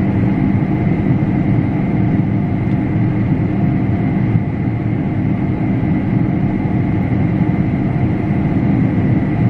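Combine harvester running steadily while cutting wheat: a constant low machine drone with a thin, steady whine above it.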